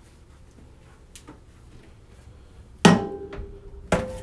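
A frying pan set down in a stainless steel sink: two metal clanks about a second apart near the end, each ringing on briefly.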